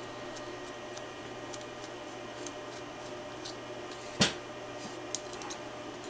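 Faint ticks and rubbing of a plastic F-connector installation tool and coax cable as an F connector is forced onto RG6 cable, with one sharp click about four seconds in, over a steady room hum.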